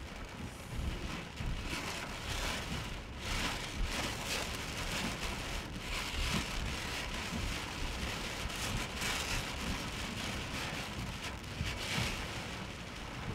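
Heavy rain beating on a car, heard from inside, swelling and easing in gusts every few seconds over a low rumble.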